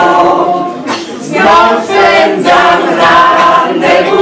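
Mixed choir of women's and men's voices singing a song in Polish, holding notes, with a short breath break about a second in before the next phrases.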